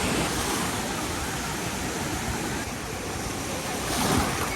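Water rushing steadily, with a louder surge about four seconds in.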